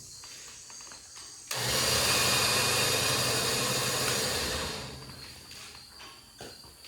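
Winch of a harness lifting system running as the steel bar is moved out of the way: a steady hum with hiss that starts suddenly about a second and a half in and winds down about three seconds later.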